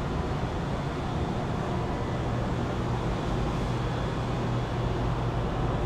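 Steady low mechanical hum with an even rush of air noise over it, unchanging throughout.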